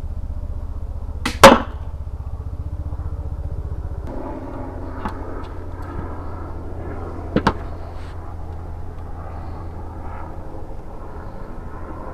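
An 80 lb Armex Tomcat 2 pistol crossbow shot into chipboard: a faint snap, then a fraction of a second later a loud crack as the field-tipped bolt strikes the board. A quieter sharp double knock comes about six seconds later, over a steady low hum.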